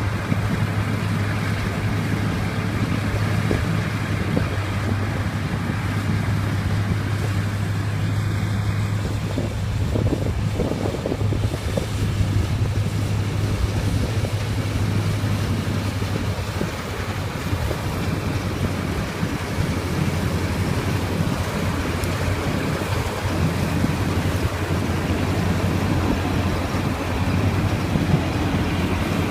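Preet combine harvester running steadily as it works, a constant engine hum under a dense mechanical noise.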